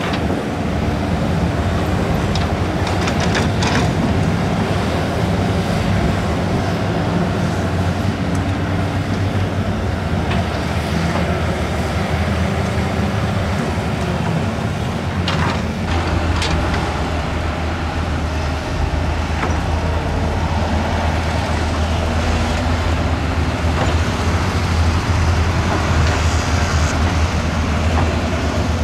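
Diesel engines of heavy earthmoving machines (bulldozer and excavators) running steadily, with a few sharp metallic clanks, twice in a cluster.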